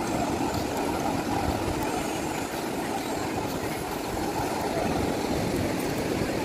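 Steady wash of low surf with wind buffeting the microphone, a continuous rushing rumble.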